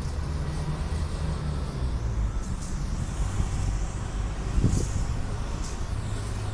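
Short hisses of an aerosol spray-paint can being sprayed onto a wall, three times, over a steady low rumble.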